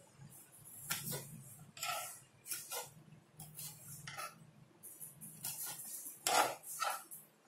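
Kitchen knife chopping green chillies on a wooden cutting board: irregular knocks of the blade on the board, about one a second, the loudest a little over six seconds in.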